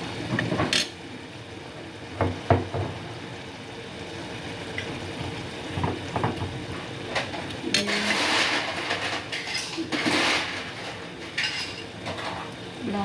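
Kitchen clatter of a spoon, bottles and a frying pan clinking and knocking while sauces are added to the pan. The sharpest knock comes about two and a half seconds in, and there are two short hissing stretches later on.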